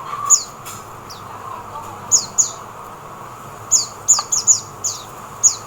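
Oriental white-eye calling: about ten short, high chirps, each sliding quickly downward, spaced irregularly with a quick cluster of several about four seconds in.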